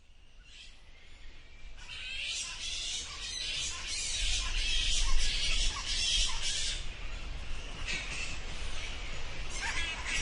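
A group of bats squeaking, many high-pitched calls overlapping into a dense chatter that fades in over the first two seconds. A low rumble runs underneath from about four seconds in.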